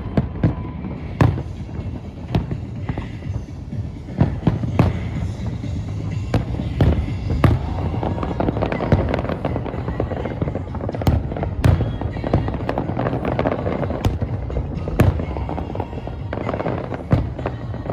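Fireworks display: aerial shells bursting in quick, irregular succession, many sharp bangs over a continuous low rumble, with music playing alongside.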